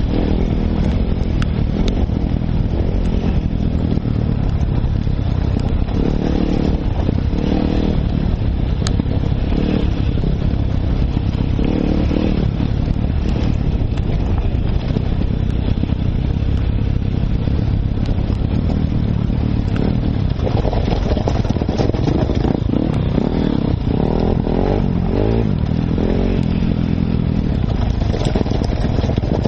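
Enduro motorcycle engine heard close from on the bike, running at low to middling revs that rise and fall with the throttle over a rough trail, with scattered clicks and clatter from the bike over stones.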